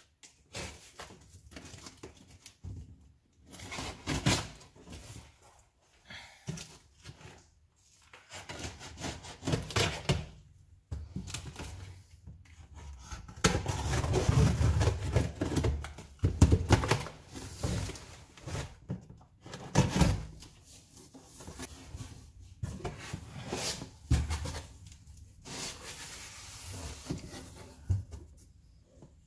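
A taped cardboard box being opened by hand: packing tape scraped and pulled off, and the cardboard rustling and knocking in irregular bursts. There is a longer, denser stretch of rustling about halfway through.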